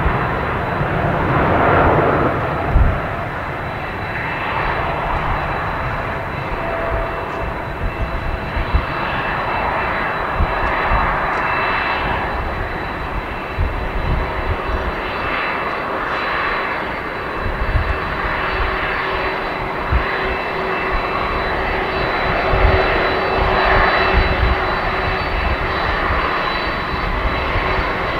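Jet engine roar from a Boeing 777F freighter's two GE90 turbofans at takeoff thrust, steady and loud, as it rolls down the runway and lifts off into the climb. An uneven low rumble runs underneath, and a thin high whine sits over the roar.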